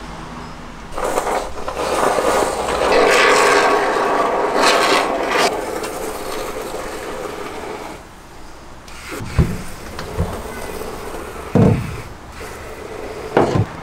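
Aerosol can of expanding foam spraying through its straw nozzle into a van's roof cavity, a hissing, sputtering spray that runs for about four seconds. Then it goes quieter, with a few short knocks.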